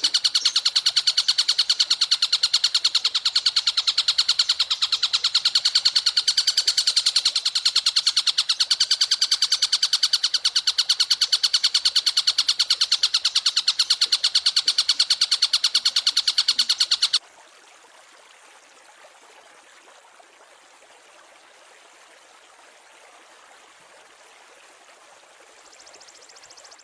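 Songbird training recording: a bird's rapid, evenly repeated high-pitched trill, which stops abruptly about 17 seconds in, leaving a faint hiss.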